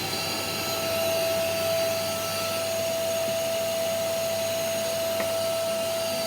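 Kärcher WD 3 P wet/dry vacuum cleaner running steadily: a rush of air with a steady whine on top.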